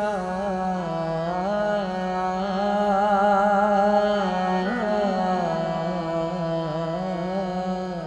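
Gurbani kirtan: a man singing long, wavering held notes over a steady drone.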